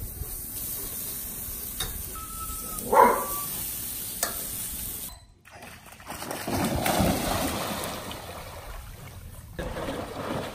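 Raw ribeye steak sizzling on a hot grill, a steady hiss, with a brief loud sound about three seconds in. After a break, a German Shepherd splashing as it runs into a swimming pool and swims.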